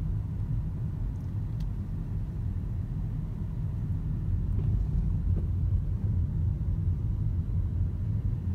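Car interior noise while driving: a steady low rumble of engine and road noise heard inside the cabin.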